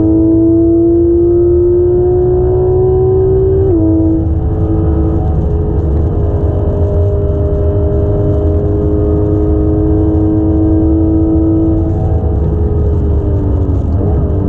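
Porsche 991.1 GT3 RS's naturally aspirated 4.0-litre flat-six, heard from inside the cabin. It rises in pitch under acceleration, with a quick PDK upshift about four seconds in. It then holds a nearly steady note, falls away as the car slows, and there is another gear change near the end.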